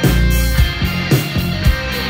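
Rock band playing live: electric guitar, electric bass and drums, with a steady beat about twice a second.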